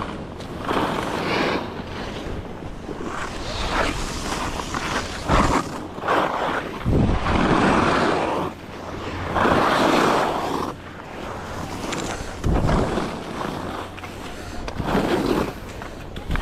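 HEAD alpine skis carving and scraping over packed, chopped-up piste snow during a downhill run, with wind rushing over the microphone. The scraping swells with each turn, loudest in two long surges in the middle.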